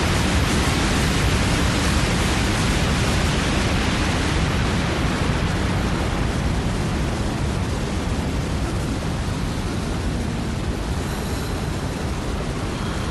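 Rocket-launch sound effect for a spaceship lift-off after a countdown: a loud, steady rushing roar, heaviest in the low end, slowly fading.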